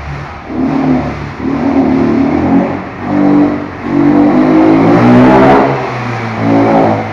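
A motorcycle engine revved in a run of short throttle blips, its pitch rising and falling with each. The longest rev climbs for about a second and a half near the middle and cuts off sharply.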